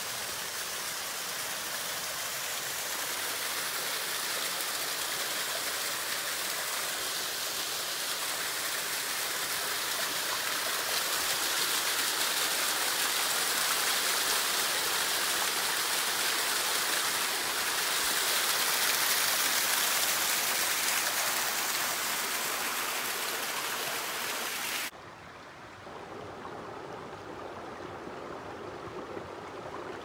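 Small waterfall splashing down over rocks, a steady rushing hiss. About 25 seconds in it cuts suddenly to a quieter, lower stream running over stones.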